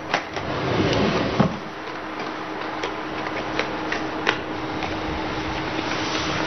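An audio cassette being handled, giving light scattered clicks over a steady hiss and low hum.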